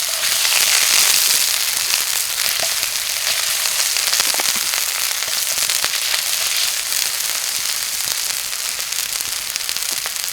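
Sausages and black pudding frying in a pan: a steady hiss of hot fat with frequent crackling spits, swelling about a second in.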